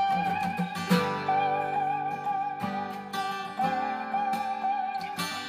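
Rock band playing a guitar-led instrumental passage: strummed acoustic guitar chords under a held, wavering high note.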